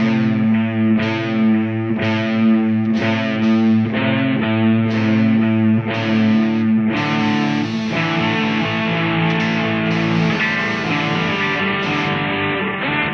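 Guitar music with a distorted, effects-laden tone: notes struck about twice a second for the first six seconds, then longer sustained chords.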